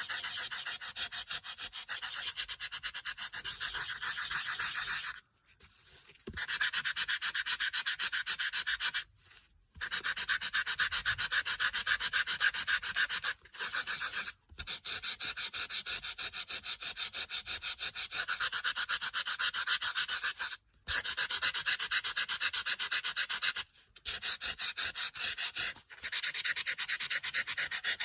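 Sanding block scrubbed in rapid back-and-forth strokes over dry-embossed white-core cardstock, a rasping scratch that stops briefly several times. The sanding wears the coloured surface off the raised pattern to bring out the white core.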